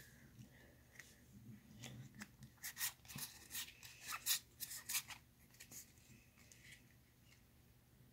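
Soft, faint handling of a stack of Pokémon trading cards, the cards sliding and flicking against each other in a string of small clicks and brushes, which thin out after about five seconds.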